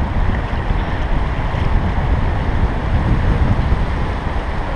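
Wind buffeting the microphone in gusts, a deep rumble over the rush of river water.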